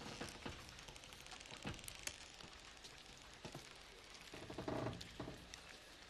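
Faint sound effect: an irregular patter of small clicks and ticks over a steady hiss, swelling briefly about five seconds in.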